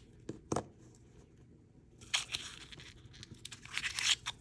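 Paper coin-roll wrapper being torn and crinkled as it is peeled back from a roll of half dollars, in rustling bursts through the second half. Two or three sharp clicks come in the first second.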